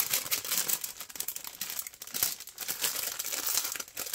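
Thin clear plastic bags crinkling irregularly as hands handle them and tuck small packets of diamond-painting drills inside.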